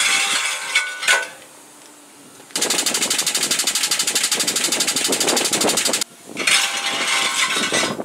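Air-driven hydraulic boat-lift jacks pumping: a rapid, even rattle that starts and cuts off suddenly and lasts about three and a half seconds. Compressed-air hiss comes just before it and again after it.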